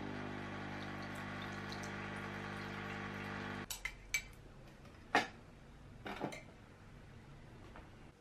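Canofea coffee machine humming steadily as it brews, pouring coffee into the cup, then cutting off about three and a half seconds in. A few light clinks of the cup and crockery follow.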